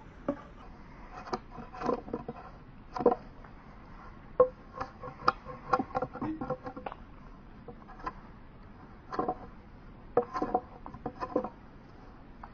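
Large knife blade shaving and scraping bark off a wooden sapling pole in short, irregular strokes.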